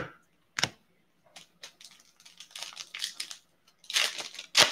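Foil wrapper of an Upper Deck hockey card pack being torn open and crinkled: irregular crackling and rustling that grows loudest near the end. Two sharp taps come first, at the start and about half a second in.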